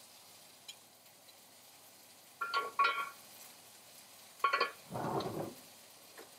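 Kitchenware clinking: two short runs of ringing metal or ceramic clinks, then a brief clatter a little after halfway.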